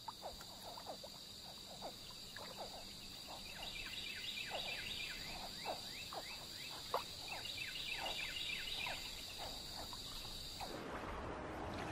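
Swamp ambience: a steady, high insect trill with a chorus of short, falling frog calls from about three seconds in. Near the end the insect sound stops and a rushing of water takes over.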